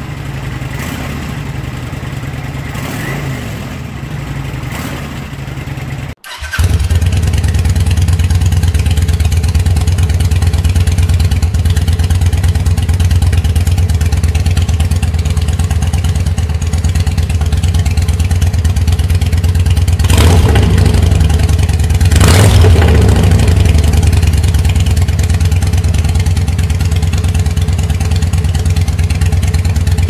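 Kawasaki Vulcan 900's V-twin idling through its stock muffler, then, after a cut about six seconds in, idling much louder through aftermarket slip-on mufflers. Two short throttle blips come about two-thirds of the way through.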